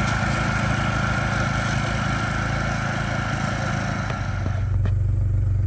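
Engine running steadily, most likely the tow-behind brush mower's engine at work with the vehicle pulling it. About four and a half seconds in, the sound changes to a lower, steadier engine hum and the hiss drops away.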